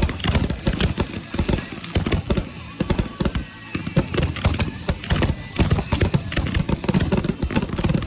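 Fireworks going off in a rapid barrage of many booms and crackling bursts, with music playing over them.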